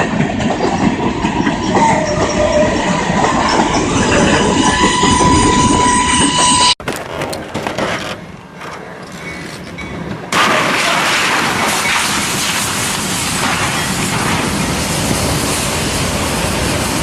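Train noise on the rails: a loud, steady clatter that breaks off abruptly twice, with a quieter stretch of clicks between about 7 and 10 seconds in.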